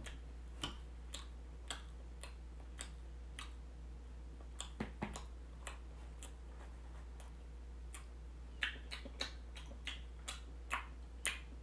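Eating sounds close to the microphone: irregular sharp wet clicks and smacks of chewing and finger-licking, roughly one or two a second and coming faster near the end, over a low steady hum.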